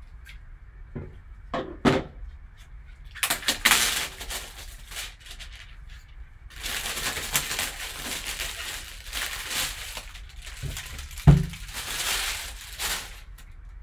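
A taped cardboard box being opened by hand: tape cut and pulled away, then cardboard and plastic rustling and scraping as the box and its contents are handled. A few light knocks in the first two seconds, and one sharp thump about eleven seconds in, the loudest sound.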